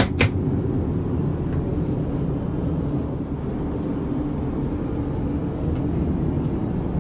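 Steady low rumble of an airliner cabin in flight. Two sharp clicks come right at the start as a lavatory cabinet flap is pushed shut.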